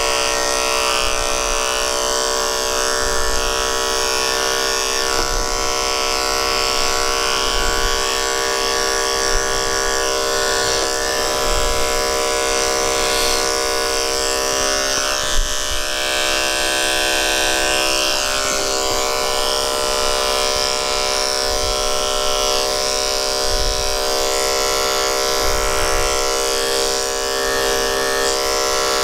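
Electric dog-grooming clippers running with a steady buzz, the blade working slowly through a Bichon Frise's matted coat.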